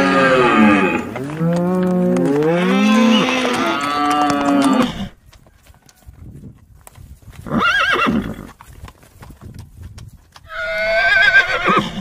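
Two long, drawn-out animal calls with gliding pitch, then a horse whinnying twice: a short whinny past the middle and a longer, quavering one near the end.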